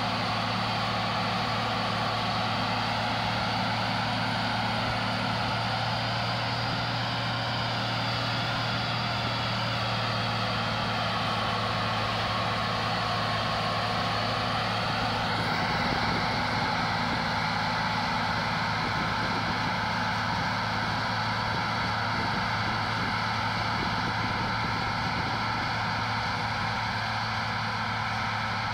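Self-propelled forage harvester chopping maize, its engine and chopping gear running together in a steady, loud drone with several held higher whining tones. A little past halfway the higher whine shifts and settles on a new set of steady tones.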